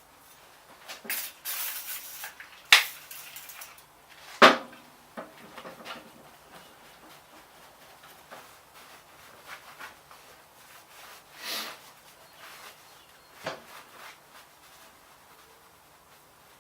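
Handling noises from workshop work: scattered knocks, clinks and scrapes, with two sharp knocks about three and four and a half seconds in.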